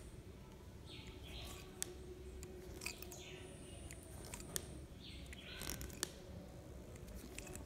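Faint handling clicks and light metal ticks as a hand tool works at the terminals of a two-way socket outlet, with short bird-like chirps repeating about once a second.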